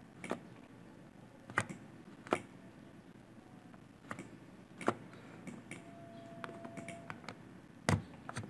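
Scattered single clicks of a computer mouse and keyboard, about ten at uneven spacing, over a faint low room hum.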